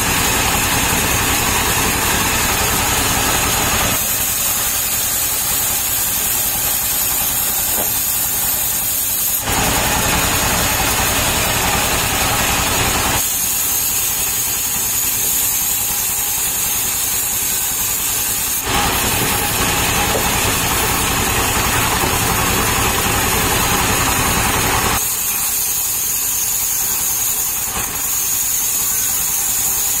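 Engine driving a large table-mounted circular saw runs steadily as the blade cuts palm logs. Louder, harsher spells of a few seconds, when the blade is in the wood, alternate with quieter stretches of the engine and the spinning blade alone.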